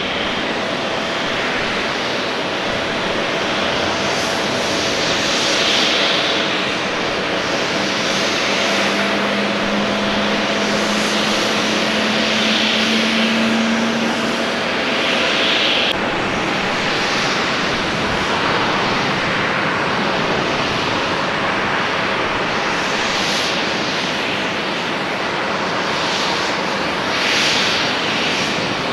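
Jet aircraft engines running on an airport apron: a steady rush with a faint held whine, swelling and easing every few seconds.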